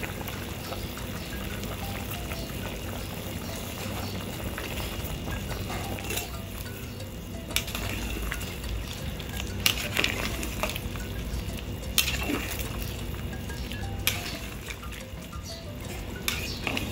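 Pot of chicken curry boiling hard: a steady hiss and low bubbling rumble, with a handful of sharp clicks or knocks scattered through.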